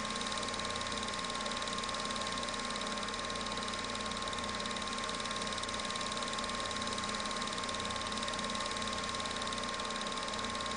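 Film projector running steadily: an even mechanical whir with hiss and a constant faint whine, unchanging throughout.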